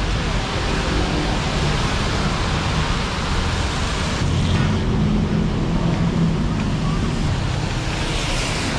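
Steady road traffic noise, with a motor vehicle's engine humming low and close from about halfway through.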